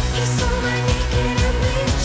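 Background pop music with a steady beat and a held melody line.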